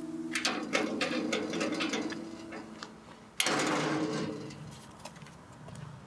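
Wrought-iron gate rattling as its latch is worked, then one sharp metallic clank about three and a half seconds in that rings briefly.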